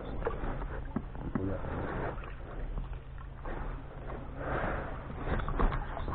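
Oars working a small rowing boat: strokes through the water with scattered knocks. The sound swells twice, about two seconds in and again past the middle.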